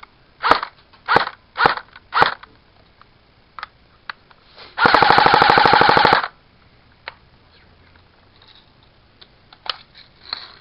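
Airsoft rifle firing: four single semi-automatic shots about half a second apart, then a rapid fully-automatic burst lasting about a second and a half.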